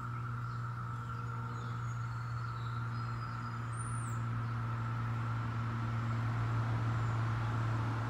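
A steady low mechanical hum, with a few faint high chirps over it.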